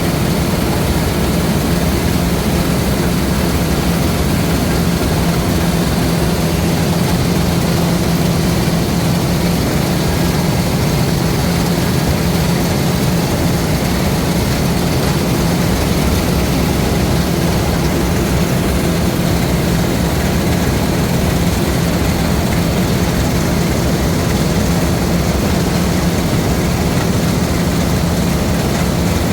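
LOVOL RG130 EVO rice combine harvester running steadily, a loud constant engine hum with a broad mechanical rush over it.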